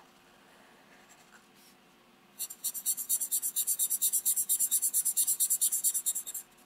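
Sharpie fine-point marker scribbling rapidly back and forth on paper as it shades a circle in solid, several strokes a second. It starts about two seconds in and stops just before the end.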